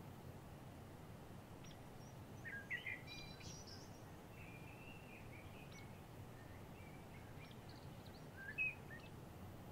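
Small songbirds chirping and warbling in short phrases over a faint, steady outdoor hiss, with the loudest calls about three seconds in and again near the end.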